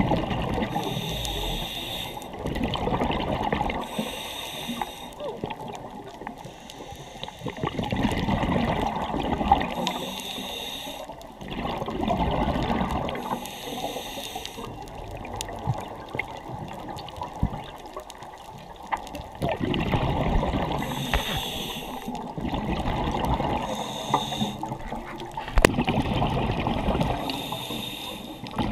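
Scuba diver breathing through a regulator underwater: a short hiss on each inhale, then a longer gurgle of exhaled bubbles, repeating every few seconds.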